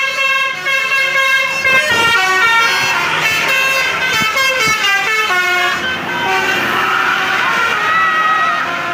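A bus's 'telolet' musical air horn playing a tune: several horn notes sounding together and stepping up and down in pitch, with a longer held chord in the second half.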